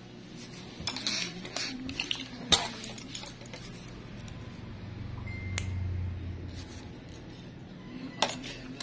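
Metal nail nippers snipping a toenail: a run of sharp clicks in the first three seconds, the loudest about two and a half seconds in, and one more near the end, over a steady low hum.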